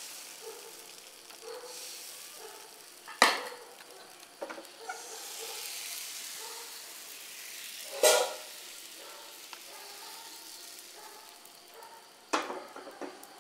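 Vellappam batter sizzling in a hot non-stick appam pan as it is poured in and swirled around, a hiss that swells and fades. A few sharp knocks of cookware cut through it, about three seconds in, about eight seconds in and near the end.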